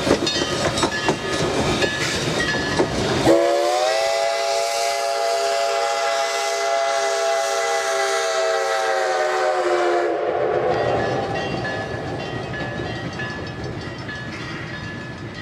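Narrow-gauge steam locomotive running close by with clanking and wheel clatter, then one long steam whistle blast of several tones together, lasting about six seconds and sagging slightly in pitch as it ends. The train's running rumble carries on after.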